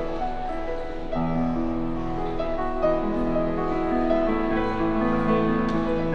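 Grand piano played live: a slow melody over long held chords, with deep bass notes coming in about a second in and again past the middle.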